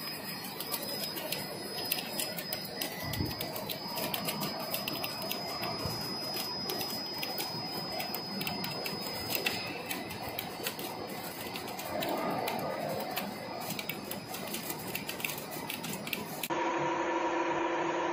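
CNC thread whirling machine cutting the helix of a steel screw pump rotor: dense, rapid metallic clicking over a steady high whine. Near the end the sound changes abruptly to a steady machine hum with several pitched tones.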